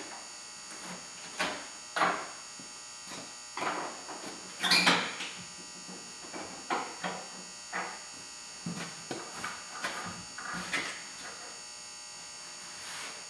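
Irregular metal clanks and knocks from the Silverado's tailgate and hinges being handled as the tailgate is taken off, the loudest about five seconds in, over a steady high-pitched electric buzz.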